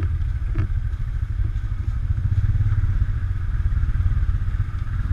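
ATV engine running at a steady pace while the quad rides along, with a brief knock about half a second in.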